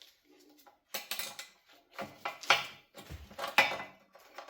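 Metal hand tools clinking and clanking against steel suspension parts: a series of sharp metallic knocks, the loudest about two and a half and three and a half seconds in.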